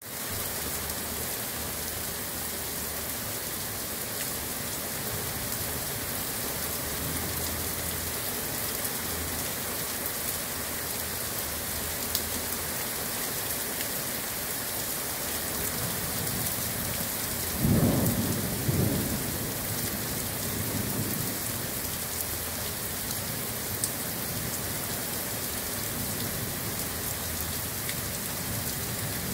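Heavy rain falling steadily, with a short low rumble of thunder about two-thirds of the way through.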